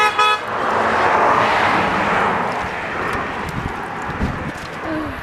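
A vehicle horn sounds briefly at the start, then a vehicle passes on the road, its noise swelling and fading over about three seconds.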